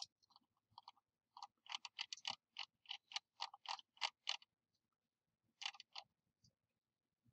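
Faint, sharp clicks of a computer's mouse or keys as a log file is scrolled through: a few scattered clicks, then a steady run of about three a second for some three seconds, and a short quick cluster near the end.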